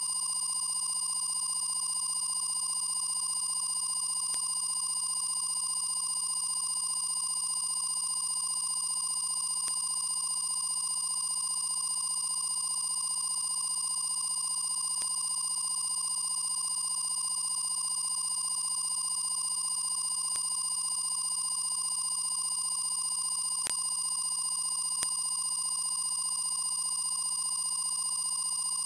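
A loud, unbroken, very high-pitched electronic tone held steady throughout, with a fainter fluttering buzz lower down beneath it.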